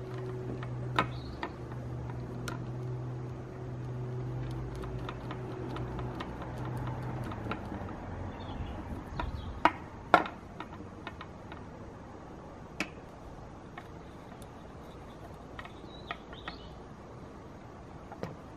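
Plastic Meccano parts clicking and clacking as they are handled and bolted together by hand, with sharper clacks about a second in and again near ten seconds. A steady low hum runs underneath for the first seven seconds or so, then stops.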